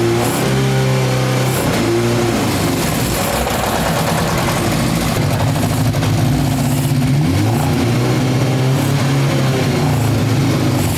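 Yamaha motorcycle's four-cylinder engine running, its pitch rising and falling as the throttle is worked. It runs poorly, which the owner puts down to dirty carburettors.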